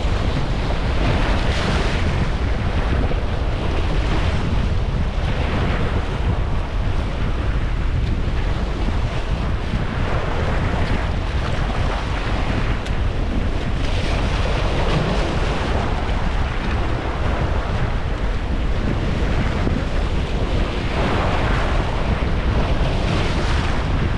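Surf breaking and washing over shoreline rocks, the wash swelling and falling every several seconds, with a strong onshore wind buffeting the microphone as a steady low rumble.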